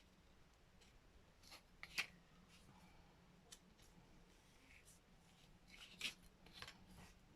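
Faint handling of paper and small craft tools: light rustles, with sharp clicks about two seconds in and again about six seconds in.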